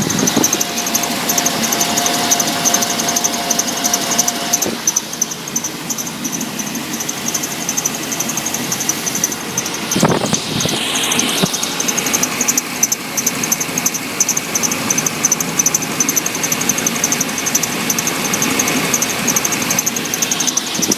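1997 GMC 1500's 5.7 Vortec V8 running with a high squeal from the serpentine belt drive, pulsing rapidly throughout, and a steadier lower whine for the first four seconds or so. The squeal persists although the water pump, idler and tensioner pulleys and alternator have been replaced, and the cause is still unknown. A brief sharp knock sounds about ten seconds in.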